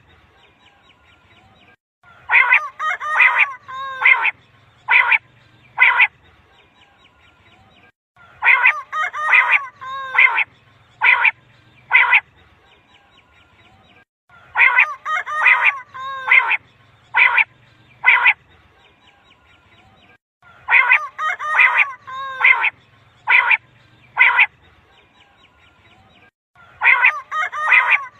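Common quail calling, played as a repeating recorded lure call. About every six seconds comes the same phrase: a quick cluster of sharp notes, then three spaced single notes.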